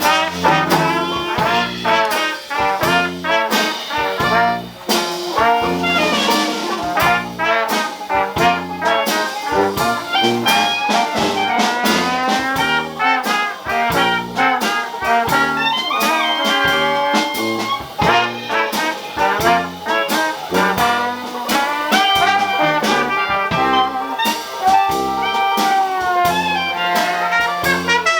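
Dixieland jazz band playing live: trumpet and trombone lines over a steady beat and a bass line that steps from note to note.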